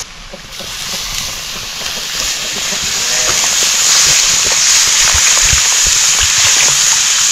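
Food sizzling in hot oil in a cooking pot: a steady hiss with fine crackles that grows louder about three seconds in.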